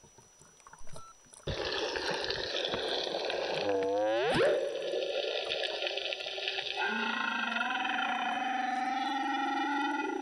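Humpback whale song heard underwater, starting abruptly about a second and a half in. A call sweeps upward about four seconds in, then a long, steady moan with overtones begins about seven seconds in, over a wash of water noise.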